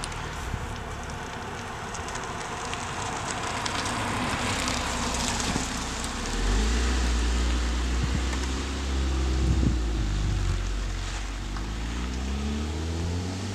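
Honda Civic Si coupe driving past, tyres hissing on the road as it comes close, then a low engine and exhaust drone about halfway through. Near the end the engine note rises steadily as it pulls away under acceleration.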